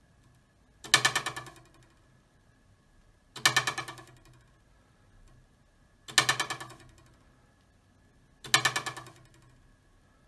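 A metal ruler held down on a table edge, its overhanging end plucked four times, about two and a half seconds apart. Each pluck gives a low, rattling twang that dies away in under a second.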